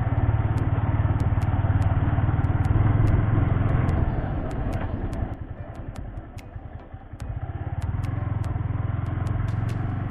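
Yamaha motorcycle running as it is ridden, a steady rumble of engine and road noise. The sound eases off about five seconds in and picks up again about two seconds later.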